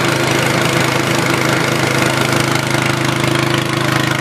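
Low-head turgo hydro turbine and inverter generator running steadily under water jets at about 20 psi, a constant machine hum over a hiss of spraying water, while it powers fans, a blender and a battery charger.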